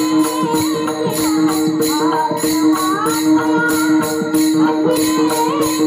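Women singing a devotional Bhairavi melody over a sustained drone, with a group of taal hand cymbals clashing in a steady rhythm, about three strokes a second.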